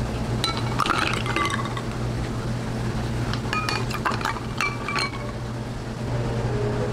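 Ice cubes tipped from a bowl into two glasses of milk, clinking against the glass. There are two bursts of clinks, about half a second in and again around three and a half seconds in.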